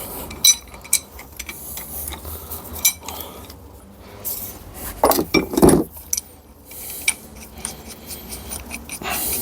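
Metal tools and gearbox parts clinking and scraping as the fifth-gear hub of a Toyota robotized gearbox is worked loose: a run of short sharp clicks with a heavier clank about five seconds in.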